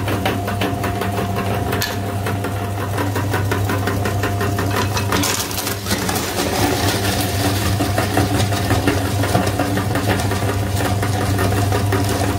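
Electric meat grinder's motor running steadily with a low hum while its auger crushes hard swirl lollipops, with a fast rattle of cracking candy over it.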